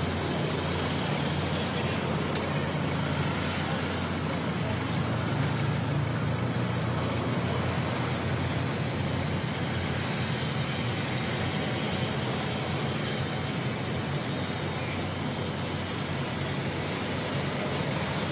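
Steady jet engine noise with a low rumble from a four-engine Boeing 747 taxiing at low power.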